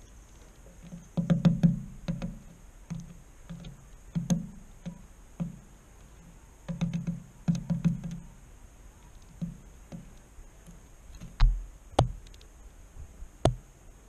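Oak titmouse pecking at seeds and nuts on a wooden feeder board close to the microphone: bursts of rapid taps, with a few harder single knocks near the end.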